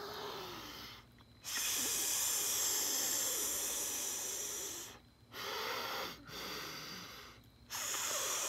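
A woman hissing like a snake, several long drawn-out hisses through the teeth with short breaks for breath between them.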